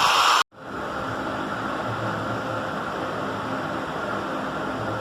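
Angle grinder fitted with a cutting blade, running while it cuts wood. It is loud for the first half second, breaks off abruptly, then carries on as a steady, even hiss.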